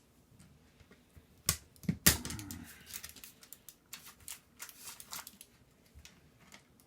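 Small plastic and metal parts of a dismantled computer keyboard clicking as they are handled: two sharper clicks about a second and a half and two seconds in, then a run of light, irregular ticks.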